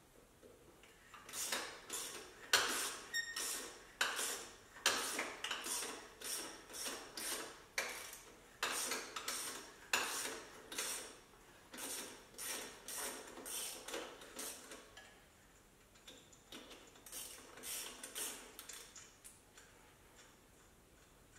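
Ratchet wrench working the twin-turbo exhaust manifold bolts of a 2JZ engine: short bursts of ratchet clicking and metal tool clinks, one to three a second, with a short lull about two-thirds through.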